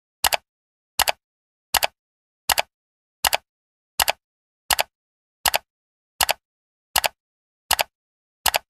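Sharp double clicks from a sound effect, repeating evenly about every three-quarters of a second with dead silence between them, about a dozen in all.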